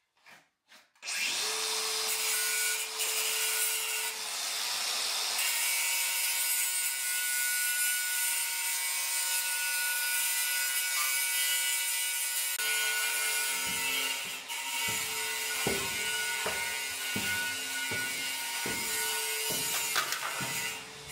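Handheld cordless power tool running at a steady speed, cutting and rasping into the wooden door frame. About halfway through, a regular series of knocks joins in under it.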